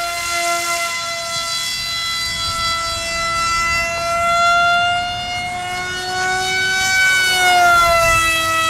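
Electric prop motor spinning a 6x5.5 propeller on a foamboard RC plane in flight: a steady high whine that wavers in pitch, rising a little about seven seconds in and then falling near the end.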